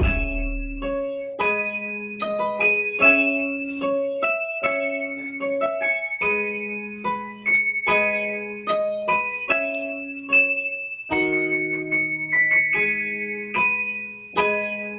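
Keyboard playing piano-like chords in a slow progression, with a high melody on top. A deep bass note fades out in the first second.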